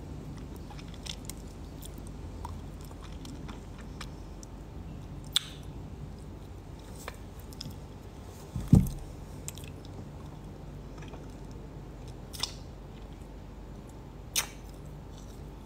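A person chewing sugar-coated candied tamarind and sucking the sugar off her fingers, with a few short mouth smacks, the loudest about nine seconds in.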